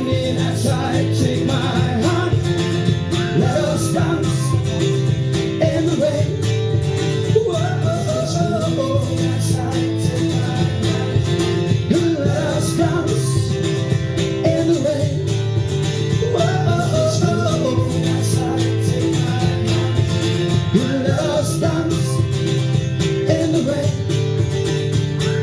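Live band music led by guitar: steady chords under a wavering melody line that comes back every couple of seconds.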